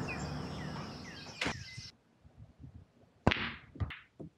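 Birds chirping over a steady outdoor background that fades and cuts off about two seconds in. After a near-quiet stretch come two sharp, loud sudden sounds about half a second apart near the end, each trailing off quickly.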